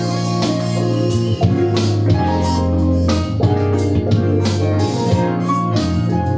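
Smooth jazz instrumental: a steady drum beat under sustained low notes, with guitar and keyboard lines on top.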